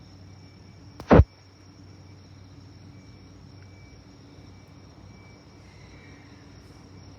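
Night insects chirring steadily over a faint low hum; about a second in, one short, loud thump.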